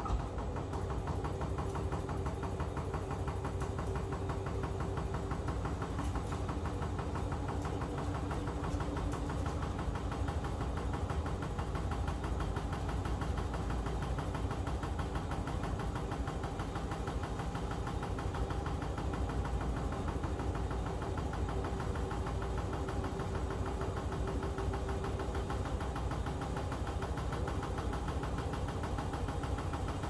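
Hotpoint WMD960 front-loading washing machine running mid-wash, giving a steady mechanical hum with a low drone that comes up at the very start and then holds even.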